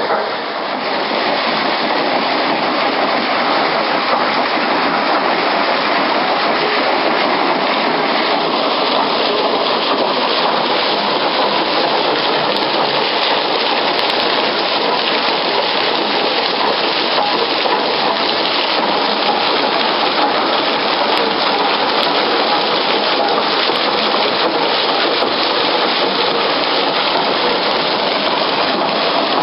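Steady, even rush of falling water, unbroken and constant in level.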